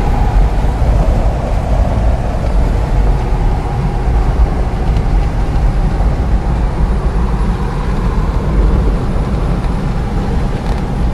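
Steady rumble of a vehicle driving, heard from inside the cabin, loudest in the low end.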